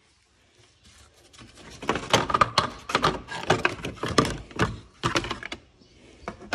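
Plastic radiator cooling fan and shroud assembly of a 2012 Subaru Forester knocking, clattering and scraping against the radiator and engine bay as it is slid up and out. The clatter starts about a second and a half in and runs as a rapid string of knocks for about four seconds.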